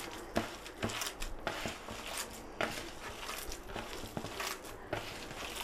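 Hand kneading raw minced beef mixture in a plastic bowl: short, irregular squelches and knocks, roughly two a second.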